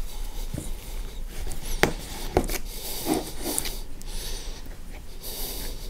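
A cotton rag rubbing and wiping old grease out of an angle grinder's gearbox housing, with a few light knocks from the parts being handled.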